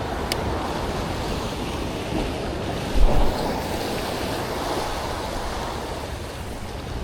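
Waves and surf washing steadily, with wind buffeting the microphone and a short, strong gust about three seconds in.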